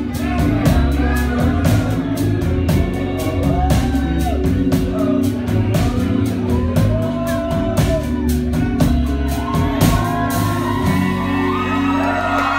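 Live band playing loud, with heavy bass, drums beating about four times a second, and voices singing and shouting over it. The drums drop out about ten seconds in, leaving the bass and voices.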